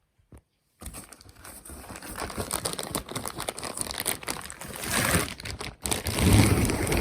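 Packaging crinkling, rustling and tearing as a car part is unwrapped from its box. It starts about a second in and grows louder toward the end.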